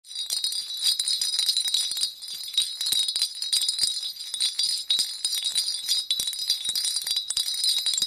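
Sleigh bells jingling, shaken in a steady stream of bright jingles that sets in abruptly.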